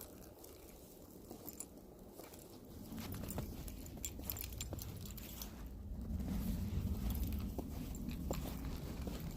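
Footsteps crunching through snow: scattered crisp crunches over a low rumble that grows louder about three seconds in.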